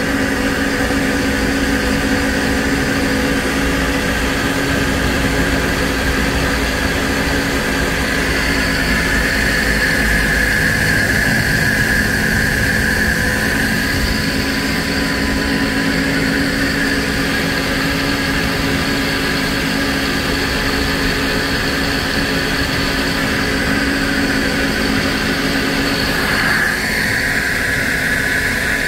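A steady mechanical drone with a constant low hum, unbroken throughout.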